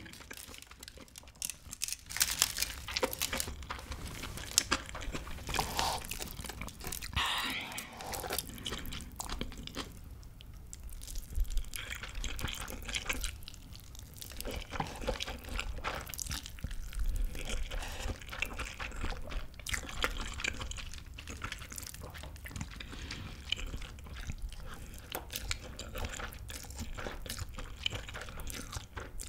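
Close-up eating sounds: biting into and chewing a foil-wrapped rice burger, then slurping and chewing spicy stir-fried instant noodles, with many small clicks and wet mouth sounds.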